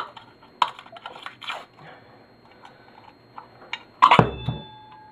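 Small metal lamp parts clicking and scraping as a brass lamp base is worked apart by hand, then a sharp metallic clank about four seconds in that leaves a ringing tone for about a second.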